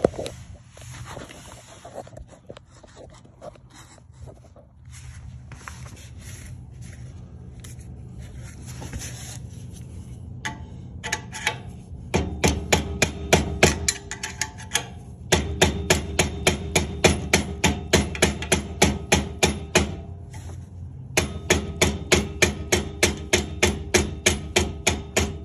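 Rapid blows of a soft hammer on a pry bar driving a stuck Harley-Davidson stock muffler forward off its exhaust pipe, about four a second, each with a short metallic ring. They come in three runs with short breaks, starting about ten seconds in, after quieter, irregular handling noise.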